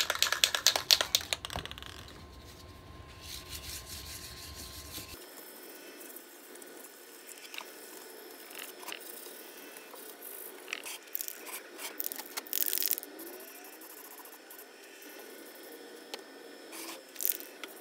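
Aerosol can of Rust-Oleum spray paint being shaken, its mixing ball rattling in fast clicks for about two seconds. Later come quieter handling sounds and a couple of short hisses of paint being sprayed.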